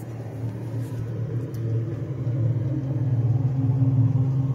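Makera Carvera desktop CNC machine running, a steady low hum that grows gradually louder over the first few seconds as it moves its laser probe around the work area in a scan.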